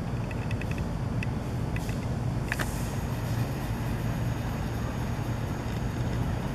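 Steady low rumble of a distant Airbus A380's jet engines in flight, with a few faint ticks in the first few seconds and a thin high whine in the second half.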